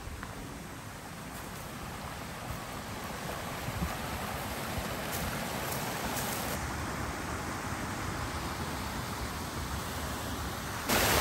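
Rushing water from a small waterfall on a creek, a steady roar that grows slowly louder, then jumps suddenly louder near the end.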